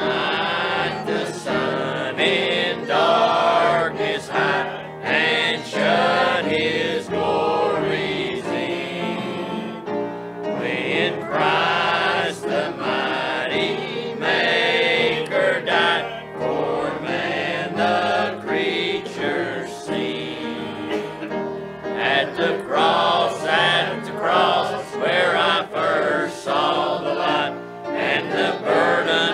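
Mixed church choir of men's and women's voices singing a hymn together.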